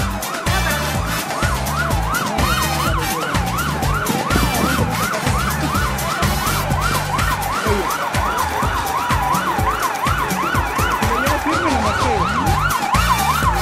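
A yelp siren sweeping rapidly up and down in pitch, about three sweeps a second, over background music with a steady beat.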